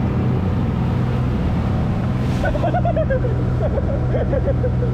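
Boat engine running at a steady pitch under the rush of water and wind on the open sea. Voices talk in the background from about halfway through.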